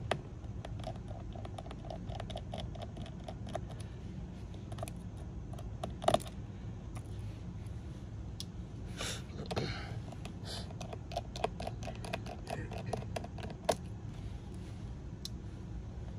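Scattered light clicks and clinks of small hard objects being handled, with short runs of quick ticks and one louder click about six seconds in, over a steady low hum.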